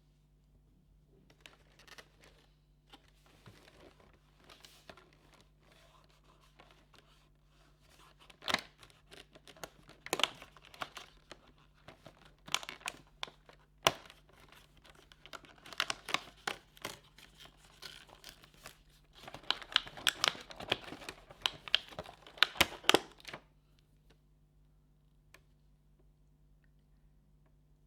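Advent calendar packaging being opened by hand: paper and cardboard crinkling and tearing, with many sharp crackles. It grows busier and louder in the middle and second half and stops abruptly about 23 seconds in.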